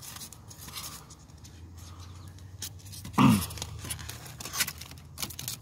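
Hands handling rigid foam test pieces: scattered light clicks, scrapes and taps over a steady low hum, with one short voice-like sound a little past halfway.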